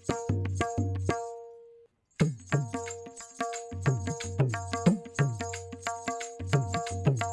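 Tabla playing a looped rhythm: the dayan (treble drum) rings at a steady pitch while the bayan (bass drum) gives deep strokes that bend down in pitch. About a second in the playing stops and the ringing fades to a brief silence, then the rhythm starts again.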